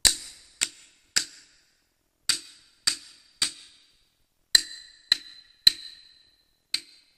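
Wooden clappers (phách) tapping rhythm pattern A in 3/4: sharp strokes in groups of three, about two a second, with a short pause after each group, one quarter note per beat. In one group the strokes ring on with a higher tone.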